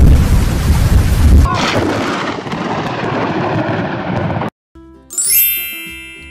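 Thunderclap: a loud rumbling crash in the first second and a half, trailing off into a steady rush of rain. It cuts off about four and a half seconds in, and a short musical chime follows.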